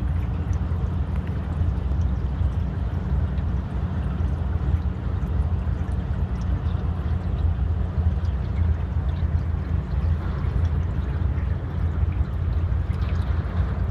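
Water trickling and gurgling along the hull of a small sailing canoe moving slowly, over a steady low rumble.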